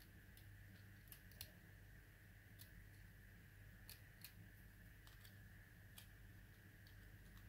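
Faint, irregular clicks and ticks of a thin metal tool and fingers working against a toy drone's plastic frame and circuit board, over a low steady hum.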